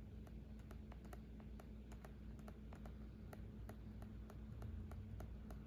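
A run of light, irregular taps and clicks, about three to four a second, over a faint steady hum.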